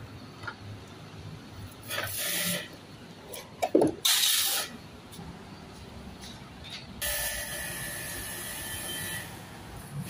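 Pressure washer spraying water in short bursts of hiss, the loudest about four seconds in, with a sharp knock just before it. A longer spell of spraying with a steady whine follows from about seven seconds in.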